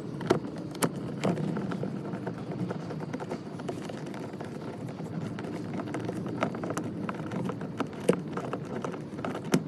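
Scattered sharp clicks and taps of plastic door-panel trim and clips being handled and pried, a few at a time, over a steady low background noise.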